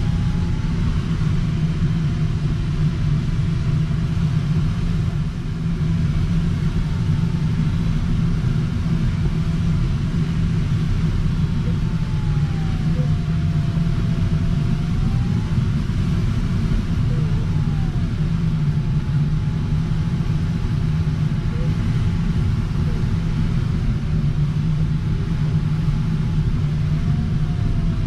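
Steady low wind noise of air rushing over an LS-4 glider's cockpit in flight, with the audio variometer's thin tone faintly sliding up and down in pitch.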